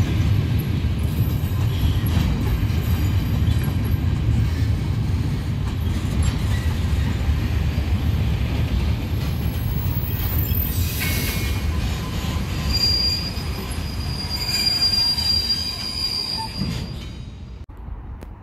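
Freight train of covered wagons rolling past at close range: a steady low rumble of wheels on rail, with a high-pitched wheel squeal joining in for a few seconds in the second half. The rumble drops away suddenly near the end.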